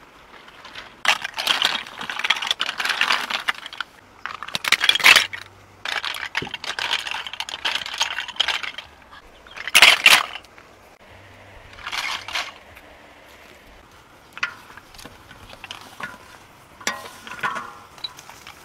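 Hard snail shells clattering and scraping against one another and the metal of a wok as they are stirred with a spatula, in irregular bursts of one to three seconds, the loudest about ten seconds in.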